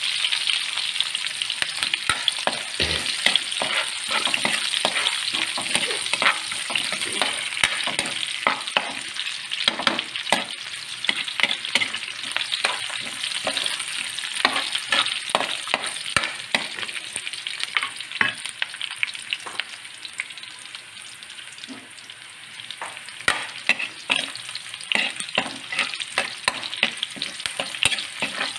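Sliced onion and garlic sautéing in oil in a stainless steel wok: a steady sizzle with a metal spoon scraping and clicking against the pan as they are stirred. The sizzle and stirring get quieter for a few seconds past the middle, then the clicking picks up again.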